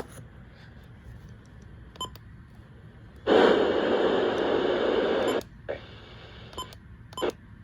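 Midland WR400 weather alert radio: a few short clicks of its keys, then loud static hiss from its speaker for about two seconds that cuts off sharply, followed by more clicks.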